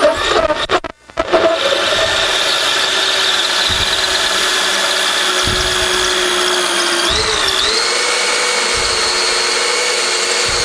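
Power drill running a 2 5/8-inch hole saw through a wooden 2x4 stud, enlarging an existing hole. It starts in short bursts and stops briefly about a second in. Then it runs steadily with a motor whine that wavers and steps up in pitch a little after halfway.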